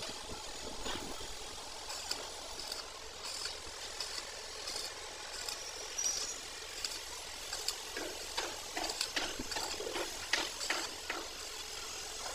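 Stick (arc) welding on a steel excavator track roller: the electrode's arc crackling and sizzling, with a steady low hum beneath and sharp irregular pops coming thicker in the second half.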